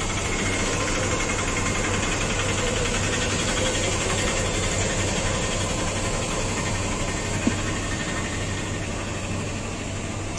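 Steady mechanical hum of a soft-serve ice cream machine running as cones are filled, its motor and refrigeration compressor droning at a constant pitch. A single sharp click about seven seconds in.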